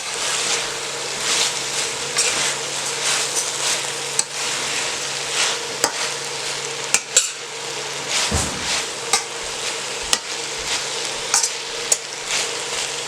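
Green beans and baby eggplant frying in red curry paste and oil, sizzling steadily while a utensil stirs them, with short scrapes against the pan about once a second.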